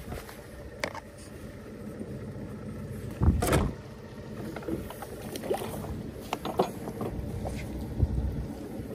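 Hallberg-Rassy 352 sailboat under way: a steady low rumble with scattered clicks and creaks, and one louder thump about three and a half seconds in.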